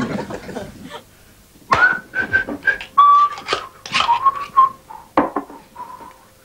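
A person whistling a halting tune in short notes, with sharp clicks and knocks in between, typical of a knife and plate handled while making a sandwich.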